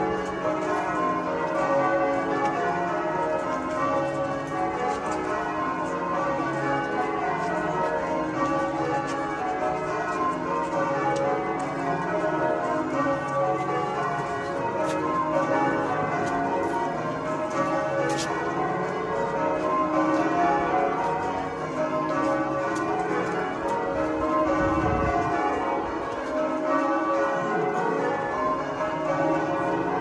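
Cathedral church bells being rung in changes: a continuous peal of overlapping bell strikes, each bell ringing on at its own pitch.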